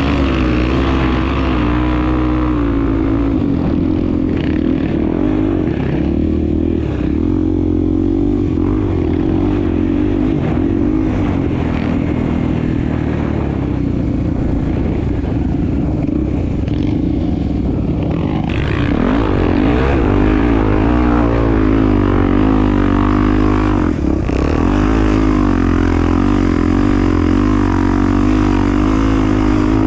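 Honda Tornado's 250 cc single-cylinder four-stroke engine running while ridden, its pitch rising and falling with the throttle. It gets louder and harsher about two-thirds of the way through as the throttle opens up.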